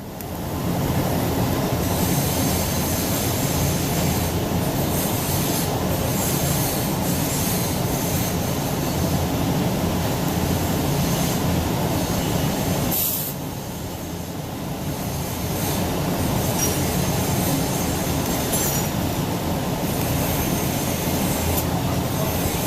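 TIG welding arc running with a steady hiss and buzz. It eases off about thirteen seconds in and builds back up a couple of seconds later, as the foot pedal is backed off and pressed down again.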